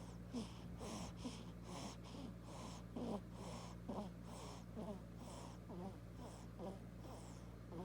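Faint snoring: quick, rhythmic snuffly breaths about twice a second, over a steady low hum.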